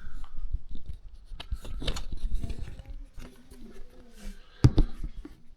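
Irregular clicks, knocks and rubbing of hands working on toilet tank plumbing parts while the fill valve is taken out, with one louder knock about four and a half seconds in.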